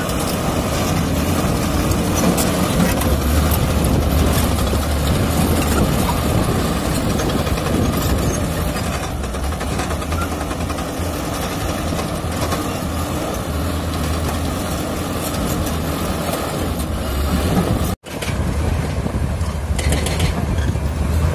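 Komatsu D85 bulldozer's diesel engine running steadily under load as the dozer works broken rock. The sound cuts out for an instant about eighteen seconds in, then carries on a little quieter.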